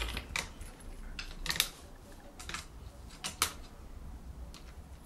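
Scattered light metallic clicks and clinks of a new Shimano 11-speed bike chain being handled and fed into the rear cassette and derailleur, over a low steady hum.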